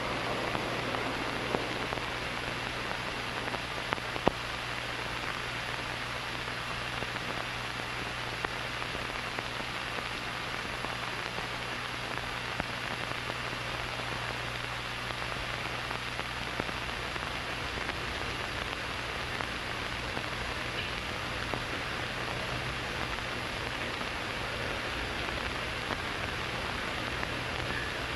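Steady hiss with a low mains hum and a few scattered clicks: the background noise of an old broadcast soundtrack, with no speech or music.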